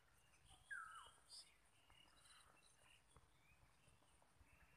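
Near silence with faint bird calls: a short falling whistle about a second in and a few scattered high chirps.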